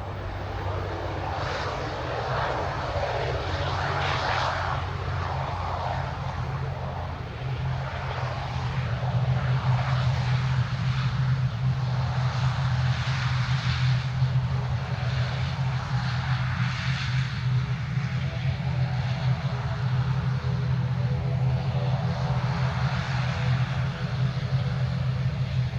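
Fixed-wing aircraft engines running with a steady low drone and a rushing noise above it, growing louder about eight seconds in and then holding steady.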